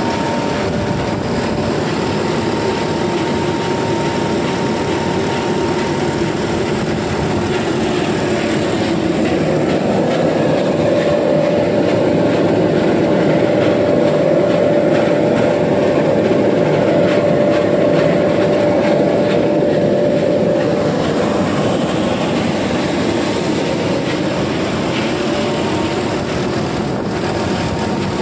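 Soya chunk extrusion plant machinery running: a steady, loud machine drone with a steady whine that grows a little louder through the middle.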